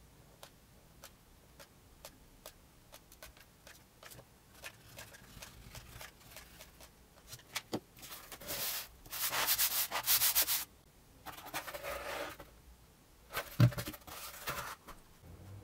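Hot glue gun clicking lightly as beads of glue go onto foamboard strips, then a paper-faced foamboard sheet rubbing and scraping as it is folded over, pressed down and slid across a cutting mat, with a thump near the end.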